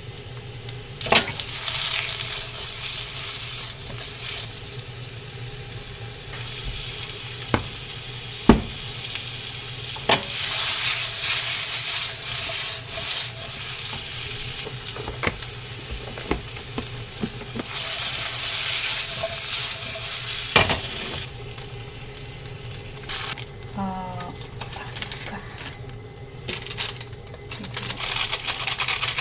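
Food sizzling in a frying pan as it is stirred, the sizzle swelling and fading in long loud stretches, with a few sharp knocks of a utensil on the pan. Near the end the sizzle dies down and a quick run of light clicks follows.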